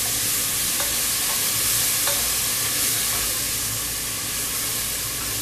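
Sliced onions and ginger-garlic paste sizzling in hot oil in a pressure cooker as a spoon stirs them, with a couple of light ticks of the spoon against the pot. It is the bhuna stage, frying the paste with the browned onions until it smells cooked.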